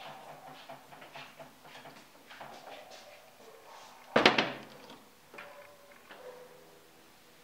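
A wooden serving tray set down on a glass tabletop, giving one sharp knock about four seconds in, among faint handling sounds.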